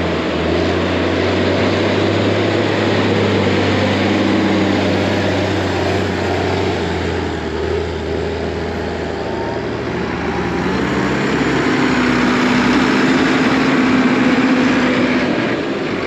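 Heavy diesel tractor engines running under load as tractors push and pack chopped corn silage, a steady deep drone. In the second half an engine tone climbs as one tractor revs up, then drops away shortly before the end.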